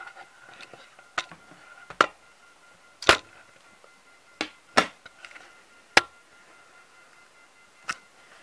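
About seven short, sharp hits at irregular spacing over faint background music with a steady tone.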